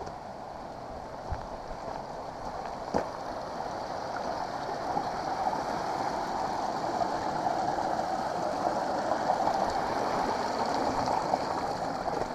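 A mountain creek rushing, a steady watery noise that grows louder and then eases off near the end, with a few faint knocks.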